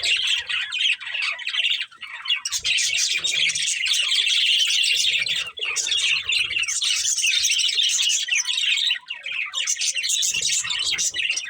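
Budgerigars chirping and chattering almost without a break, a dense run of fast high chirps and warbles with a short pause about two seconds in.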